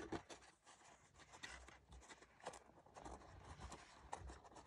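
Faint rustling of paper with a few light ticks, as a printed art page is handled and pressed into photo corners on an album page.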